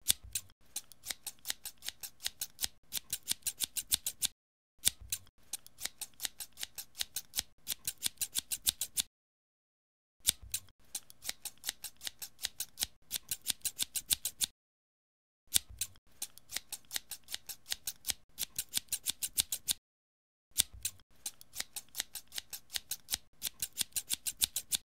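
Scissors opening and closing in quick runs of sharp metallic snips, several a second, in five bursts of about four seconds with short silent gaps between them.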